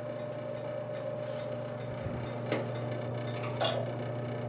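Whitfield pellet stove's blower running with a steady hum on its low setting, with a couple of light metallic clicks, one about two and a half seconds in and another about a second later.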